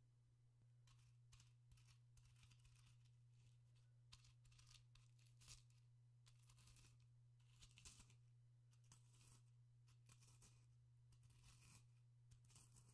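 Quiet, irregular scratchy crunching as a pestle grinds and crushes dry crumbly material in a mortar, with a few sharper crunches about 5.5 and 8 seconds in.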